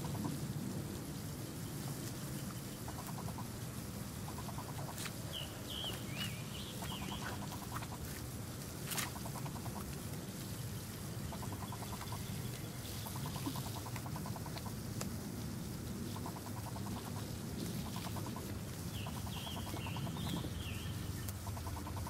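Birds calling outdoors: two brief runs of chirps, a few seconds in and near the end, with repeated short buzzy calls, over a steady low rumble. A single sharp click about nine seconds in.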